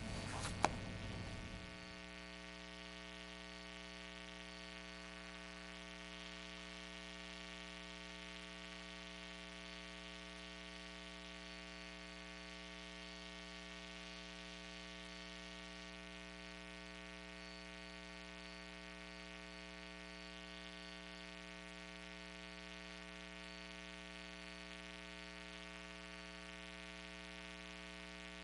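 Steady electrical mains hum with many evenly spaced overtones, preceded by a short stretch of room noise and a single click about half a second in.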